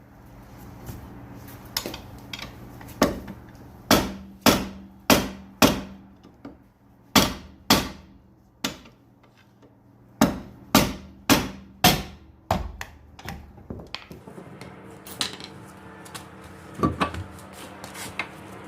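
Hammer blows on a rear wheel rusted fast to its hub, struck again and again to knock the corroded rim loose. The blows come in bunches about half a second apart, then fall to a few weaker knocks in the last few seconds.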